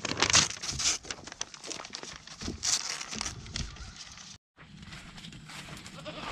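Paper crinkling and tearing as a goat bites into a sheet of paper and chews on it. The sound drops out for a moment a little over four seconds in, then fainter scuffing follows.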